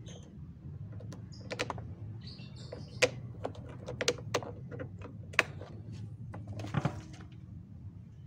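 Scattered light clicks and knocks as the scooter's rear brake lever and kick-starter are worked, over a low steady hum.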